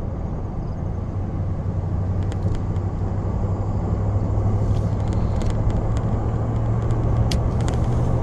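Truck engine and tyre noise heard from inside the cab while towing a trailer: a steady low drone under a rushing road noise, slowly getting louder. A few faint clicks come in the second half.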